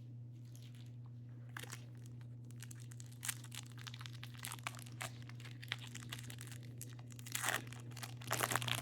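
A 2025 Topps Series 1 card pack's plastic wrapper being crinkled and torn open by hand: scattered crackles from about a second and a half in, growing denser and loudest near the end.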